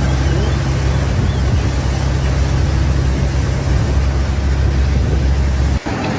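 Steady rushing roar of floodwater with a deep low rumble, cut off abruptly near the end.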